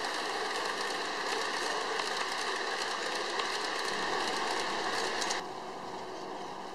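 Large-scale garden model train's tank cars rolling past close by, their wheels clattering over the rails in a dense patter of small clicks. About five seconds in the clatter cuts off to a quieter steady hiss.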